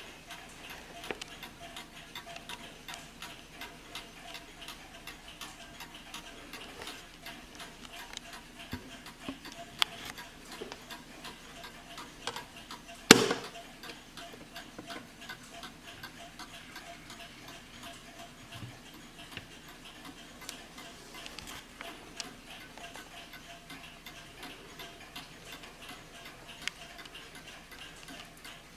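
Warmink Wuba Beidemeijer mantel clock ticking steadily, with one sharp, much louder knock about thirteen seconds in.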